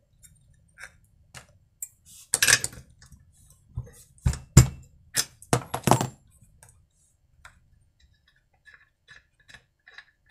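Metal clinks and knocks of a T-handle spark plug wrench on a chainsaw's spark plug as the plug is unscrewed, loudest in the first six seconds. This is followed by a run of faint light clicks.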